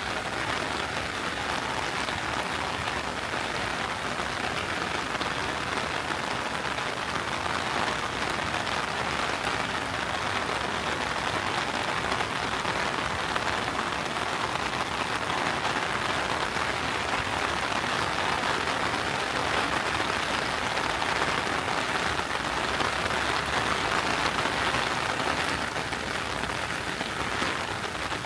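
Steady rain falling, an even, dense hiss of drops with no let-up.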